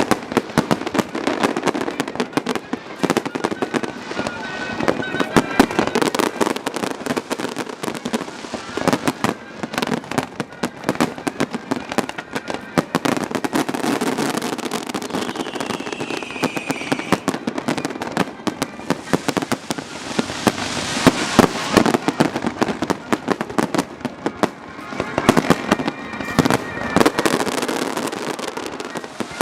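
Aerial fireworks bursting in a dense, continuous barrage of bangs and crackles. About halfway through, a falling whistle cuts through.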